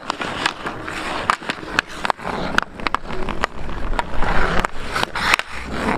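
Ice hockey skate blades scraping and carving on the ice, with irregular sharp clicks of sticks hitting the puck.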